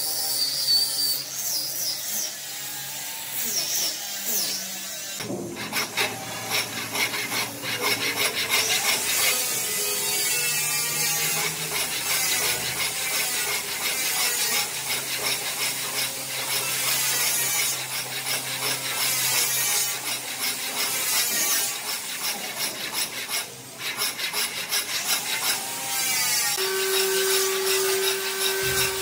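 Hand and power tools working wood, with continuous rough rubbing and scraping strokes like sawing or sanding. A steady tone joins in near the end.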